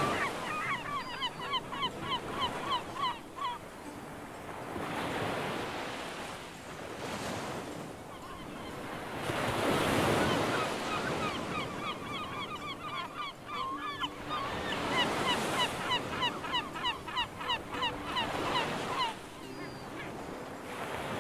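Surf washing onto the beach in slow swells, with gulls calling in rapid runs of short, repeated notes in three bouts.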